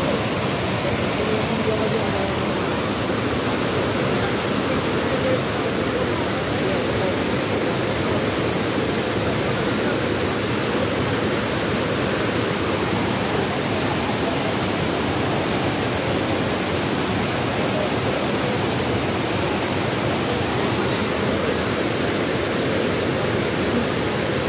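Steady rush of a river tumbling over rocky cascades and a waterfall.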